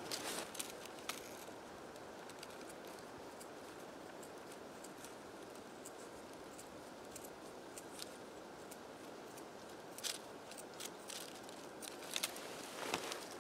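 Scissors cutting through a sheet of leather, heard as scattered short snips, mostly in the first second and again in the last few seconds, over a steady faint hiss.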